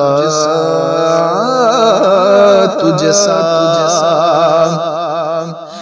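A male voice singing a naat, drawing out a long wordless melismatic line that wavers and bends in pitch over a steady low drone; the singing drops away briefly near the end.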